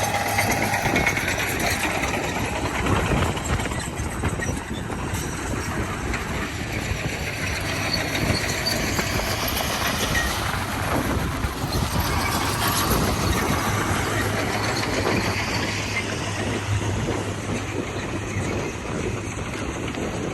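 Komatsu D41P crawler bulldozer at work: its diesel engine running with a steady low hum under the clatter of its steel tracks.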